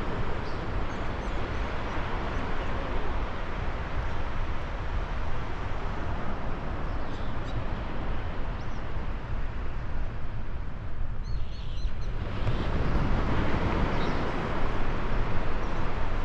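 Birds chirping now and then over a loud, steady rushing noise with a heavy low rumble, which grows brighter a little after the middle.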